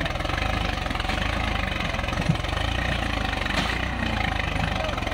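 Swaraj farm tractor's diesel engine running steadily with a low, even chug. There is one sharp click a little over two seconds in.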